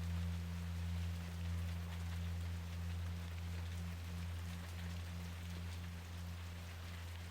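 Steady rain falling on a surface, with a low held tone underneath whose upper note pulses gently about twice a second through the middle.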